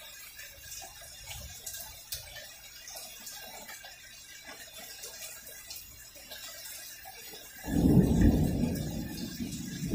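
Rain falling steadily with scattered drips; about three-quarters of the way in a loud, low rumble of thunder starts suddenly and keeps going.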